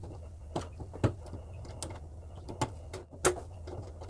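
A handful of short, sharp metallic clicks and scrapes, spaced irregularly, as a small screwdriver works at a gas stove's control valve to turn out its inner plug. A steady low hum runs underneath.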